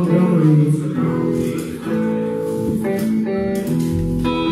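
Blues band playing live: guitar chords strummed and held, with a deep low note about four seconds in.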